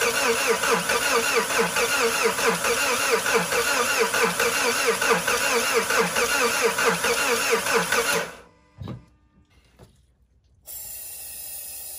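Starter cranking a Mazda CX-5's 2.2-litre SkyActiv-D diesel, with about four compression pulses a second, and the engine not catching: it won't start readily even after air has been bled from the fuel system. The cranking stops about eight seconds in and a single thump follows. Near the end comes a steady spray hiss of parts cleaner being sprayed into the air intake.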